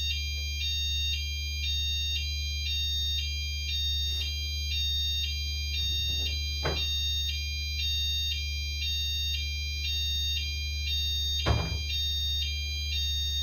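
Fire alarm sounding continuously in a two-tone warble, flipping between a higher and a lower shrill tone about every half second, over a steady low hum. Two sharp knocks cut through it, one about halfway in and a louder one near the end.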